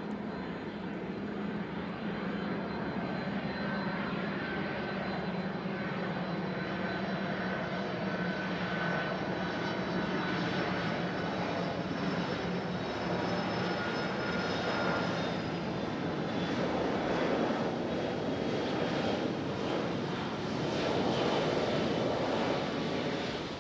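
Jet engines of a Boeing 767-300ER airliner running, a steady rush under high whining tones that slowly drop in pitch. The noise grows gradually louder, loudest near the end.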